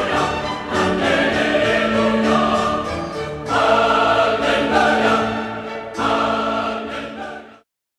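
Background music with a choir singing, fading out to silence near the end.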